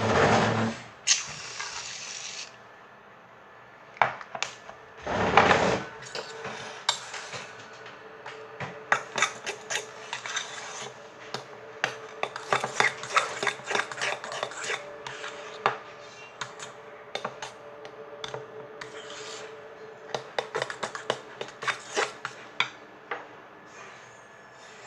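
Slime being mixed: irregular scraping and rubbing with many small clicks and knocks of a utensil against a container, with two louder scraping bursts near the start and about five seconds in. A faint steady hum runs underneath.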